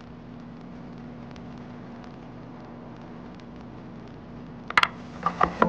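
A steady low hum and hiss, with a few sharp wooden knocks and clacks near the end as the carved maple inlay pieces are handled and set down on the CNC table.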